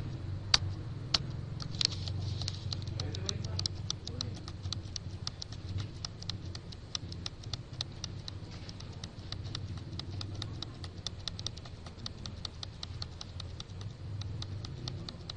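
Rapid, evenly spaced clicking of a computer key or button pressed over and over, about five clicks a second, with a few louder clicks at the start, over a low steady hum.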